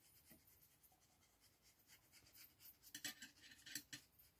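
Faint scratching of a plastic glue bottle's nozzle drawn along a paper box's glue flap as liquid glue is squeezed on, with a few light taps about three to four seconds in.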